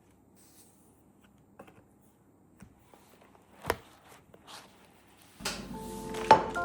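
Small clicks and light knocks of objects being handled, with one sharper click midway. Near the end, soft background music with chime-like notes comes in, and a loud sharp knock sounds over it.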